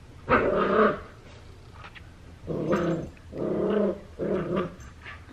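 Miniature schnauzer puppy vocalizing in four short pitched sounds, each under a second.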